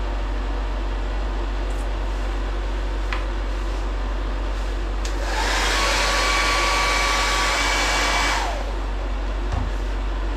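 A hand-held hair dryer runs for about three seconds in the middle, a strong rush of air with a motor whine that spins up at the start and winds down at the end, over a steady low electrical hum.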